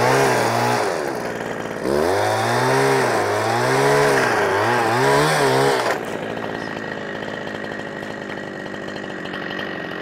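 Chainsaw cutting at high revs, its pitch rising and falling as the chain bites and frees in the wood. About six seconds in it drops off to a quieter, steadier running sound.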